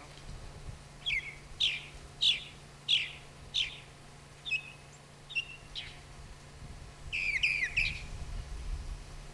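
A songbird calling: a run of five evenly spaced, downward-sliding whistled notes about two-thirds of a second apart, a few softer notes after, then a quick jumble of notes near the end.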